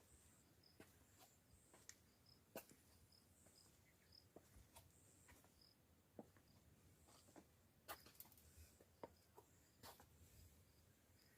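Near silence, with faint scattered clicks and a faint high chirping that repeats irregularly.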